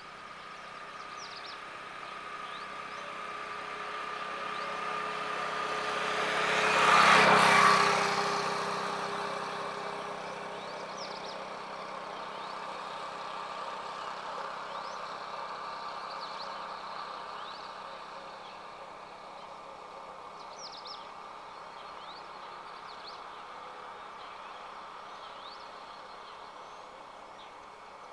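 A road vehicle approaching and passing close by, loudest about seven seconds in, then fading away. Small birds chirp faintly now and then.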